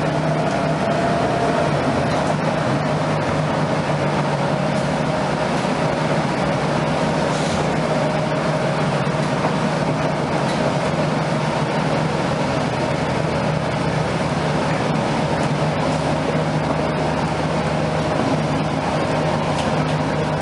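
Cabin noise on board a NABI 31LFW transit bus: a loud, steady drone from the high-running HVAC system over the hum of the Cummins-Westport ISL-G natural-gas engine and running gear, holding one pitch throughout.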